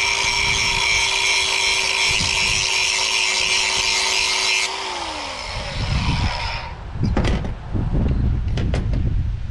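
Electric grinder running at a steady pitch as it takes a little metal off the heavy side of a lawn mower blade to balance it, then switched off about five seconds in and winding down quickly. A few sharp knocks follow near the end.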